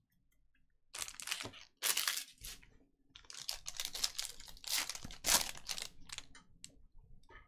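Panini Prizm hobby card pack wrapper being torn open and crinkled by hand, in a series of irregular rustling, tearing bursts.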